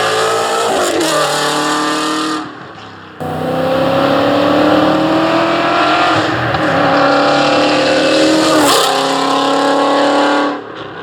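Ford Mustang Shelby GT350's flat-plane-crank V8 through a Stainless Works aftermarket header and exhaust system, accelerating hard, its pitch climbing and dropping at each upshift, about one second in and again near nine seconds. The sound fades out about two and a half seconds in, a second pull cuts in about three seconds in, and it fades again near the end.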